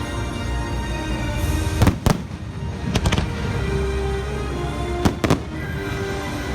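Fireworks going off during a theme-park fireworks show, with sharp bangs about two seconds in, one at three seconds, and a quick pair around five seconds, over the show's music.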